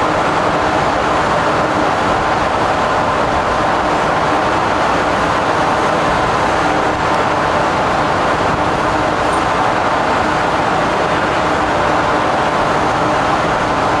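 Steady, loud drone of shipboard machinery, a dense even rush with a faint constant hum underneath, with no distinct knocks or changes.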